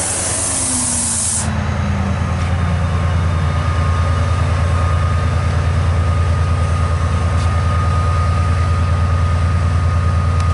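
Class 68 diesel locomotive drawing to a stand: a loud air hiss cuts off about a second and a half in while a falling whine dies away. Then its Caterpillar V16 diesel engine idles with a steady low throb and a thin, steady high whistle.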